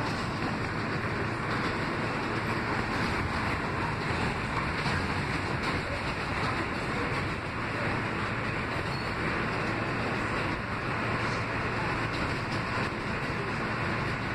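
Steady running noise of an R160B subway car, heard from inside the car as it rolls along the elevated track: wheels on rail and undercarriage noise, with a few faint clicks.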